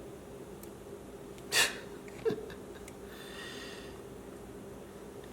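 A short, sharp puff of breath about a second and a half in, followed by a small click and a soft rustle, over a steady low hum.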